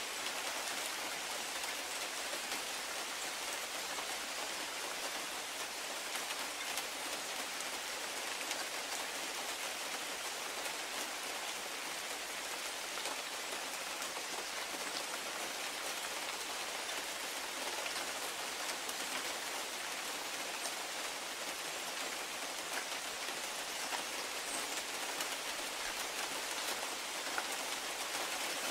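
Steady rain falling on a conifer's branches and the grass below: an even hiss dotted with many fine drop ticks.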